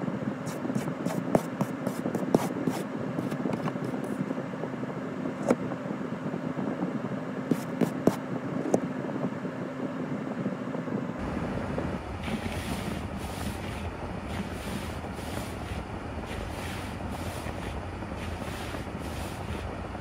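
Vehicle running noise: a steady hum with scattered clicks and ticks, changing to a deeper rumble about eleven seconds in.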